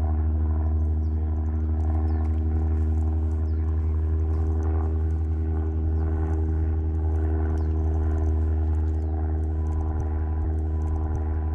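A steady motor hum that holds one even pitch without rising or falling, with faint light ticks scattered over it.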